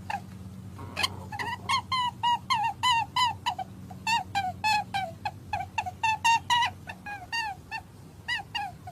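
A rabbit squeaking: a quick run of short, high-pitched squeaks, about three a second, with brief pauses, over a low steady hum.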